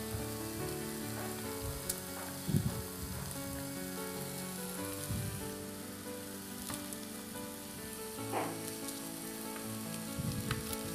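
Sliced onions sizzling as they fry in oil in a frying pan, with a few light knocks of utensils.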